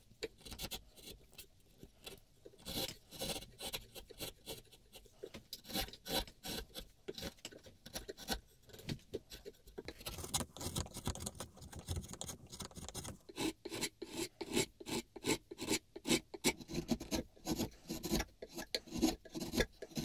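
Steel bench chisel paring and scraping the curved beech body of a hand plane: a run of short, irregular cutting strokes, louder in the second half.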